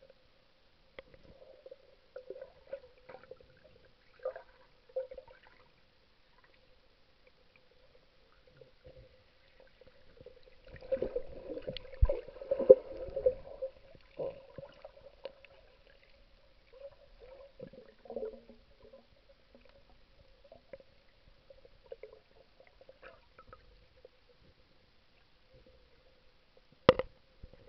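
Muffled underwater sound picked up through a waterproof camera housing: gurgling and sloshing water with scattered knocks, busiest around the middle, over a faint steady hum. A single sharp knock near the end.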